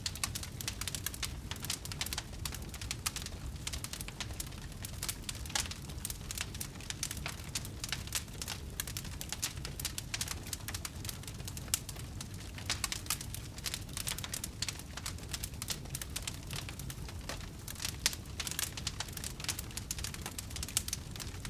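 Large wood fire burning, the logs crackling and popping irregularly over a steady low rumble of the flames.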